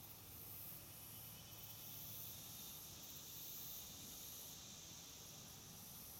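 Faint insect chorus in leafy woodland: a steady high buzz, with a shriller layer above it that swells and fades every second or so.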